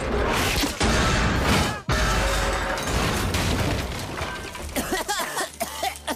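Crash effect of metal scaffolding collapsing: a continuous crashing clatter with heavy impacts about a second in and just before two seconds, over dramatic music, dying away in the last couple of seconds.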